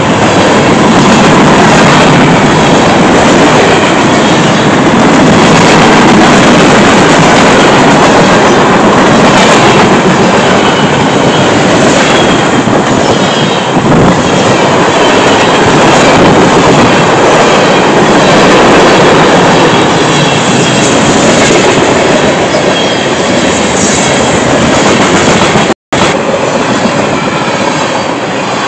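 Freight train's cars passing close by: a loud, steady rumble and clatter of steel wheels on the rails as covered hoppers, flatcars and tank cars roll past. Near the end the sound cuts out for an instant.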